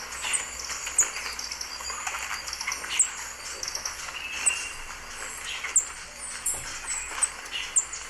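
Green thorntail hummingbird calling: thin, very high chip notes, some sliding down in pitch, given irregularly, several in quick succession at times.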